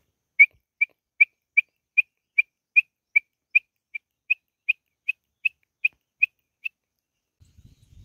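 A long series of about seventeen short whistled notes, evenly spaced at roughly two and a half per second, all at about the same high pitch, stopping about a second before the end.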